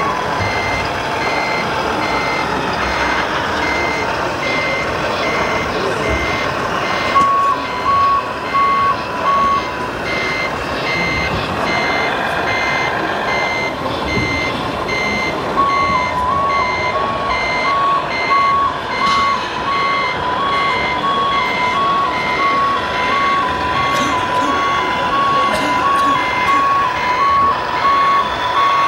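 Electronic reversing beeper from a radio-controlled model fire truck's sound module, beeping steadily about twice a second. A second electronic tone, alternating between two close pitches, joins in for a few seconds about seven seconds in and again from about sixteen seconds on.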